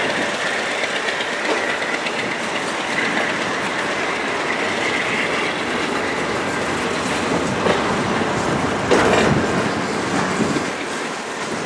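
Freight train's loaded bulkhead flatcars rolling past at close range: a steady rumble and clatter of steel wheels on the rail. A faint high wheel squeal fades after the first couple of seconds, and a louder knock comes about nine seconds in.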